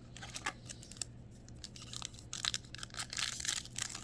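Foil wrapper of a trading card pack crinkling and crackling as it is handled, a scatter of crackles that gets much busier about two seconds in.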